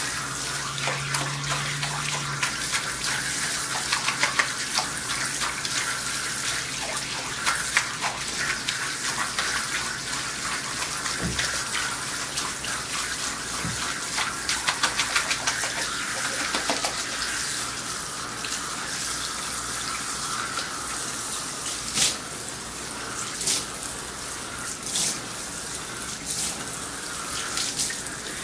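Water spraying steadily from a hose spray nozzle onto a dog's wet coat and spattering into the tub as the shampoo is rinsed out. A few sharp taps sound near the end.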